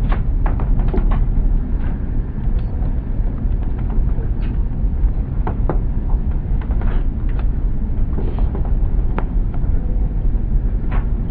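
Vehicle driving on a dirt road: a steady low rumble of tyres and engine, with scattered sharp clicks and knocks at irregular intervals.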